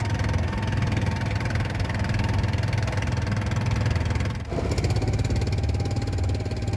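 Small fishing boat's engine running steadily under way, with a deep drone; it dips briefly about two-thirds of the way through, then carries on.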